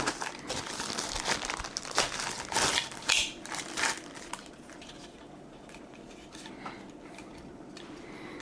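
Plastic packaging crinkling and rustling as vacuum accessories are unwrapped and handled, in irregular bursts that die down about halfway through.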